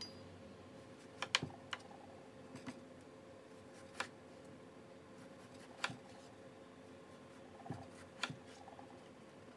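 Chef's knife cutting through raw potatoes and knocking on an end-grain wooden cutting board: short, sharp knocks at irregular intervals, some in quick pairs, over a faint steady hum.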